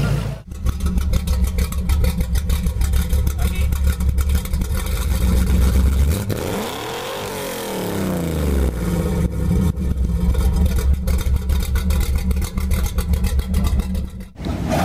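Car engine running with a rapid, even pulsing beat. In the middle the tone sweeps up and back down, and it cuts off abruptly near the end.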